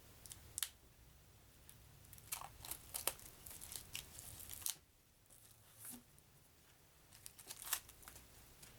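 A stack of playing cards being handled and flipped through: scattered short snaps and rustles of card stock, in clusters with a brief pause about halfway.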